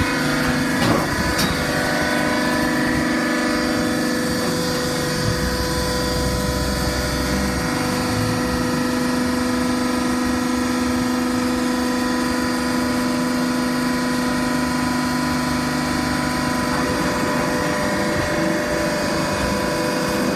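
Hydraulic baling press running: its electric motor and hydraulic pump hum steadily with a steady whine, with a sharp clank about a second in.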